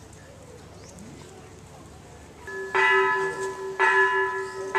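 A temple bell struck three times, about a second apart, in the second half; each strike rings on with steady tones until the next.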